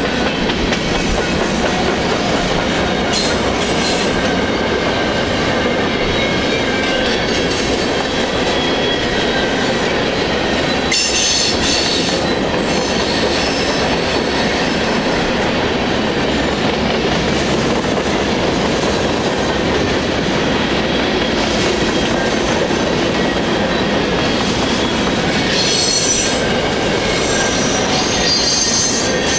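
Union Pacific manifest freight train's cars rolling past with a steady rumble of wheels on rail. High-pitched wheel squeals come briefly about eleven seconds in and again near the end.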